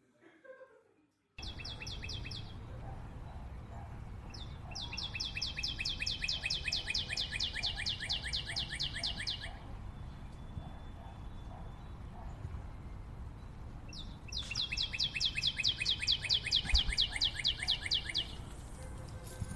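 Birdsong: long runs of rapid, evenly repeated high chirps, starting about a second and a half in, over a steady low background noise.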